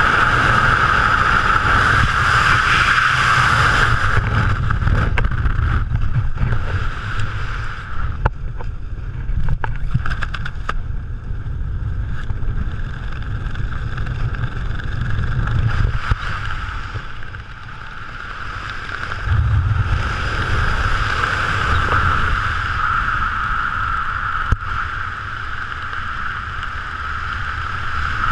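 Wind rushing over a skydiver's helmet-mounted camera, with a steady whistle over a low rumble. About four seconds in it drops sharply amid a run of flapping clatters as the parachute opens, then picks up again about twenty seconds in under the canopy.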